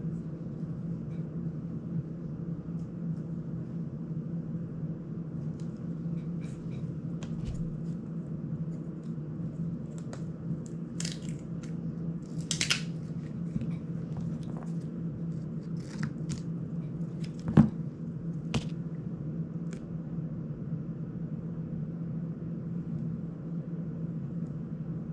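Hand workbench sounds during a drone frame and prop-guard repair: black tape is pulled off its roll in two ripping rasps about eleven and twelve and a half seconds in. Around them come scattered clicks and taps of small plastic parts being handled, with one sharp click past the middle, all over a steady low hum.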